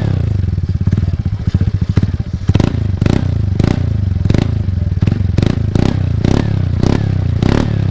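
TVS Ntorq 125 scooter's single-cylinder engine running through an aftermarket free-flow exhaust without a dB killer. It is blipped once and then idles. From a couple of seconds in it is blipped again and again in quick succession, each rev dropping straight back.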